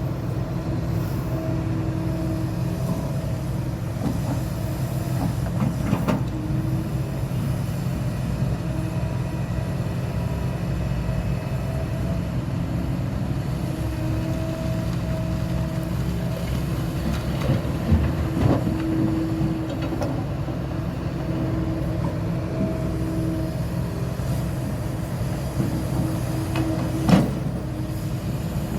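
Kobelco SK300 hydraulic excavator's diesel engine running steadily under work, with a whine from the hydraulics that comes and goes. A few sharp knocks break through, the loudest near the end.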